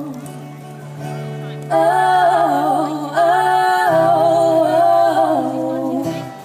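A woman singing live with acoustic guitar through a stage PA, in phrases of long held notes over a steady low note.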